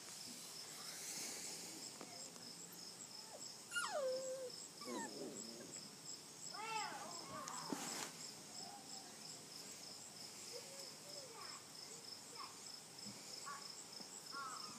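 Six-week-old standard poodle puppies whimpering and whining, with a long falling cry about four seconds in and a few short rising-and-falling yelps around seven seconds, then small squeaks. A steady insect trill pulses in the background.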